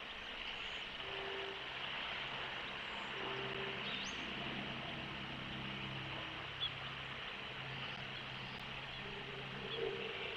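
Steady outdoor hiss of wind and surf on a nest-cam microphone, with a faint low drone in the middle and a faint short rising bird call about four seconds in.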